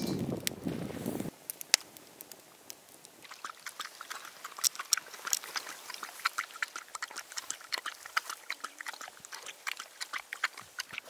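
For about the first second, a steel skimmer is sloshing fish pieces around in a wok of water. Then a dog laps milk from a glass bowl, a run of quick, wet, clicking laps several a second.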